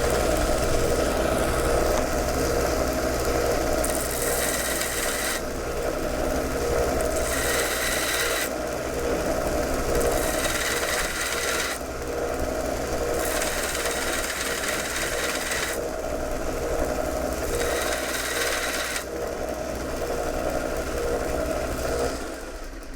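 1-inch belt sander running steadily while the steel back end of a .22 rifle firing pin is pressed to the belt several times, each pass a hissing grind of a second or two, to shorten the pin for more protrusion.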